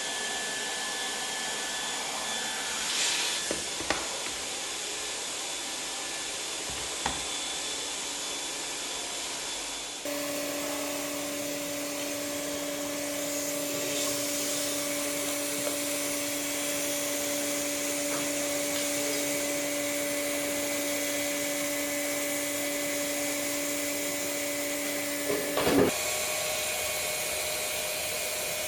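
Leister Variant T1 hot-air welding machine running, with a steady blowing rush from its hot-air blower. About ten seconds in a steady two-tone hum joins and runs until shortly before the end. There are a few single clicks early on and a brief clatter near the end.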